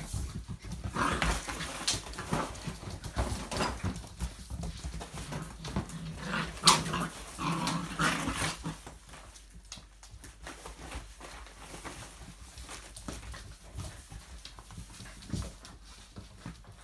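Several seven-week-old puppies playing rough, with short puppy growls and yips over tugged toys and scrabbling and knocks on the wooden floor. It is busiest in the first half, with one sharp loud knock around seven seconds in, and quieter after about ten seconds.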